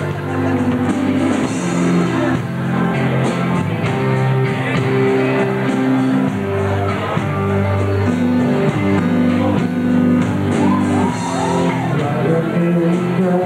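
Live rock band playing loudly, with electric guitars and keyboard and a voice singing.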